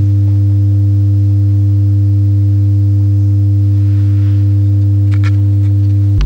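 Tang Band 5¼-inch subwoofer driver in a 3D-printed enclosure playing a steady 100 Hz square-wave test tone. Just before the end it drops abruptly an octave to a 50 Hz tone.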